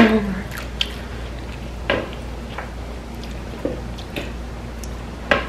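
Close-up chewing and mouth sounds of someone eating a hot baby potato: a few soft, wet clicks spaced out over several seconds, over a low steady hum.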